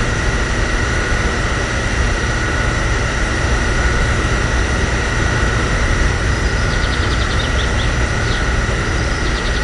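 Small electric motor of a DIY mini water pump running steadily: a constant whine over a low rumble, switching on and off abruptly.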